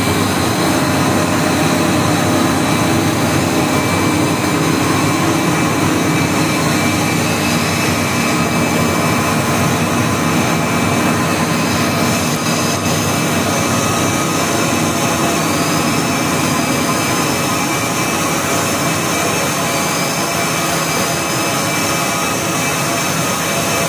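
600-head open-end rotor spinning machine running at full production, a loud steady whir with a few steady whining tones. In the second half, faint rising chirps repeat about every two seconds.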